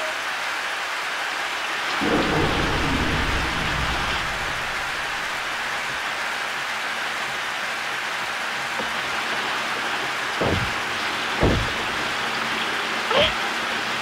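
Steady heavy rain, with a low rumble of thunder about two seconds in. Three short, sharp knocks come near the end.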